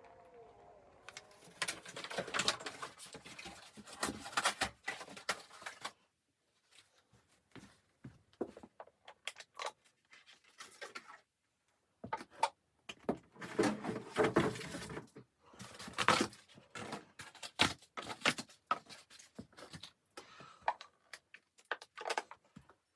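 Irregular clicks, knocks and rustles of things being handled, coming in bursts of a few seconds with short pauses between.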